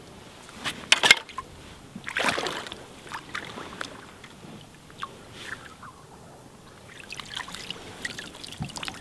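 A hooked pike splashing in shallow margin water as it is drawn in and landed by hand: sharp splashes about a second in are the loudest, then a longer slosh a second later. Smaller splashes follow, and water trickles and drips off the fish near the end as it is lifted out.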